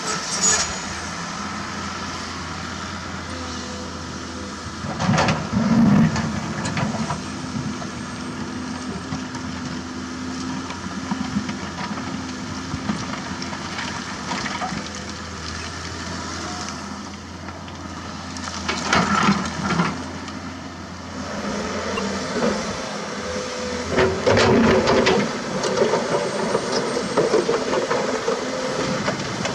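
Komatsu PC200-6 excavator's diesel engine running steadily under load while the bucket works rock and concrete rubble, with loud rattling clatters of stone against the steel bucket several times, the strongest about five seconds in, near twenty seconds and near twenty-five seconds.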